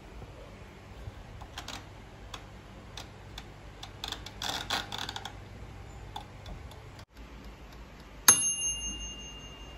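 Mechanical timer knob of a Kalala toaster oven clicking as it is turned. About eight seconds in, the oven's timer bell dings once, loud and ringing on, signalling that preheating is done.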